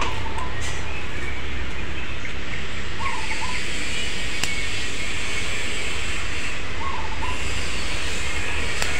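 Steady rumbling background noise, with a bird repeating a short two-note call every three to four seconds. A couple of sharp snips from small pruning scissors cutting ficus bonsai twigs, about four and a half seconds in and near the end.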